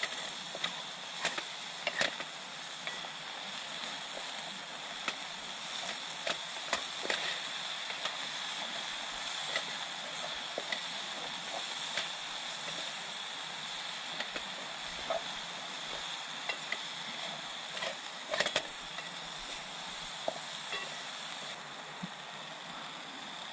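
Wooden spoon stirring ramen in a Trangia aluminium pot, with irregular clicks and scrapes of the spoon against the pot and a louder knock about eighteen seconds in, over a steady rush of stream water.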